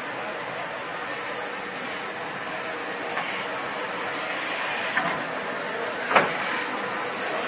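DRB Class 52 steam locomotive 52 7596 hissing steam, growing slowly louder, with a sharp knock about six seconds in.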